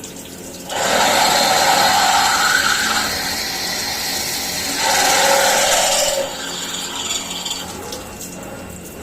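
CNC milling machine cutting metal: a loud grinding cutting noise starts abruptly about a second in, eases a little midway, swells again, then drops back to the machine's quieter running after about five seconds.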